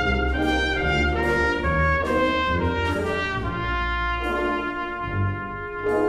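Orchestral music with the brass to the fore, a melody moving note by note over a held low bass.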